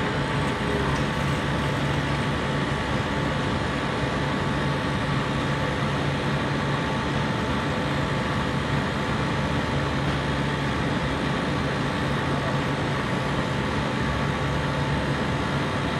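A compressor running steadily: an even mechanical drone with a low hum and a fainter higher whine, unchanging in pitch and level.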